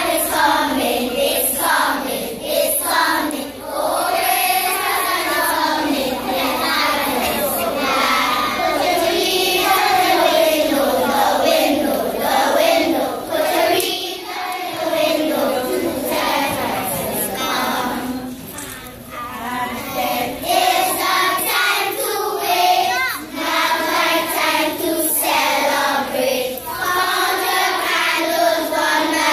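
A children's choir singing a Christmas carol together, many young voices on one melody, with short breaths between phrases.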